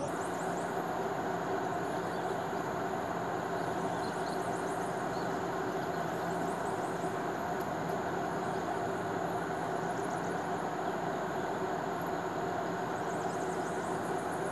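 A steady mechanical hum: a constant low drone under an even hiss of noise, unchanging throughout. Faint high chirps come and go a few times over it.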